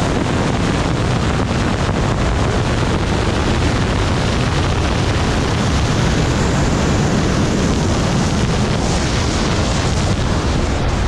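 Loud, steady rush of wind over the camera microphone as a BASE jumper flies fast through the air.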